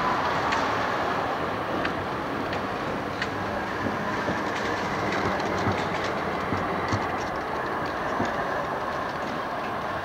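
Amsterdam GVB articulated tram passing close by, its wheels clicking irregularly over rail joints and points along with steady running noise. A whine falls in pitch about the first second.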